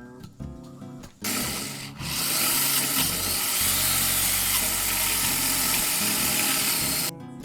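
A power tool's loud, steady abrasive noise, like sanding, starts about a second in and cuts off suddenly shortly before the end. Background music plays before and after it.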